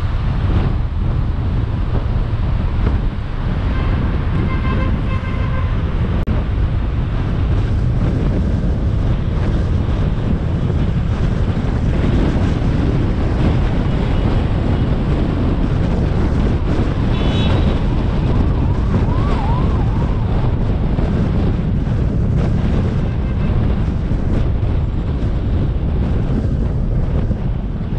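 Steady road and wind noise from a car driving along a city boulevard. Other vehicles' horns honk briefly in short repeated beeps about four seconds in and again around seventeen seconds.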